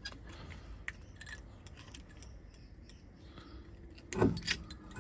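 Light metallic clinks and small knocks as steel brake parts (pads, clips, caliper guides) are handled, with one louder sound about four seconds in.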